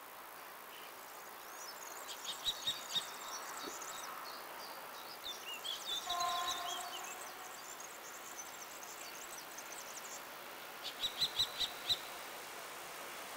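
Small birds chirping in quick clusters of short high notes, one cluster about two seconds in and another near the end, with a short run of falling notes in between, over faint steady outdoor noise.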